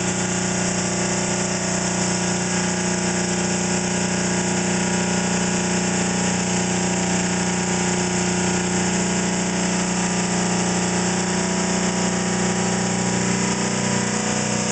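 Electric-motor-driven generator test rig spinning steadily at its operating speed of about 1600 RPM: a constant hum with a strong low tone and several fainter steady tones above it.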